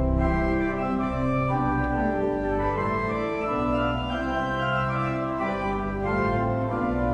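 Organ music: slow, sustained chords over held bass notes, the chords changing about every second.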